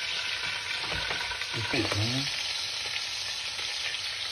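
Hot oil sizzling steadily in a pot of browned hamburger patties, with a metal spatula scraping and lifting the patties out. Sliced onions go into the sizzling oil near the end.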